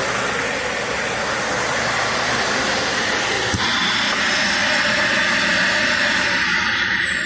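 Dyson DC40 Multi Floor upright vacuum cleaner running: a steady loud rush of motor and suction noise with a high whine. Near the end the whine starts to fall in pitch as the motor winds down.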